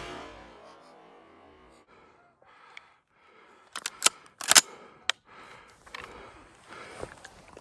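The tail of a loud bang fades away over the first second or so. Then, about four to five seconds in, comes a quick series of sharp metallic clicks and clacks of a shotgun being handled and its action worked after a misfire, with one more click near the end.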